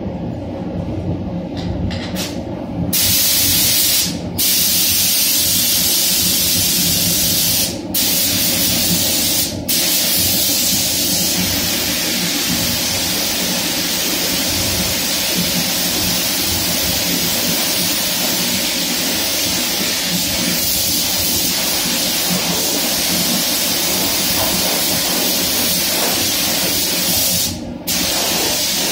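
Spray gun hissing as clear coat is sprayed onto car body panels, starting about three seconds in and stopping briefly four times as the trigger is let off. Under it runs the paint booth's steady low rumble.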